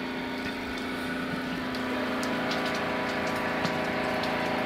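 A steady mechanical hum of several even tones from a running machine or motor, growing slightly louder, with a few faint clicks.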